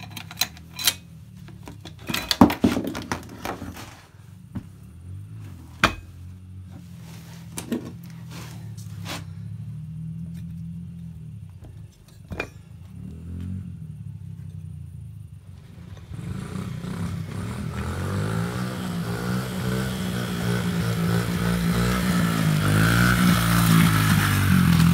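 Metal clinks and taps of axle parts, chain and tools being handled while a dirt bike's rear wheel is taken off. From about 16 seconds in, a small four-stroke dirt bike engine runs with a wavering pitch and grows louder.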